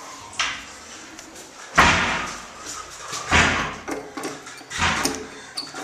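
Four heavy bangs about a second and a half apart, the second the loudest, each trailing off in a short rushing noise.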